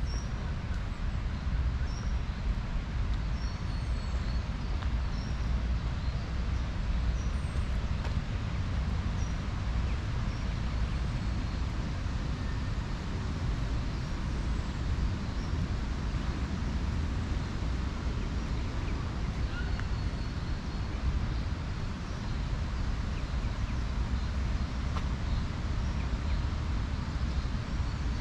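Outdoor ambience: a steady low rumble with small birds chirping every second or two and an occasional quick falling whistle.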